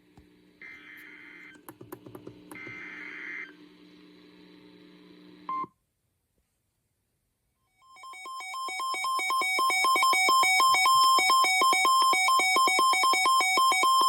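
Emergency Alert System alert. First come two short buzzy data-tone bursts over a faint hum with scattered clicks: the end of the SAME digital header. After a couple of seconds of silence, a loud electronic alert tone rapidly alternates between two pitches, fading up over about two seconds and then holding steady.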